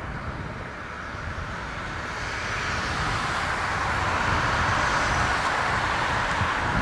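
Boeing 777F freighter on final approach, the steady rush of its GE90 turbofan engines growing louder as it nears.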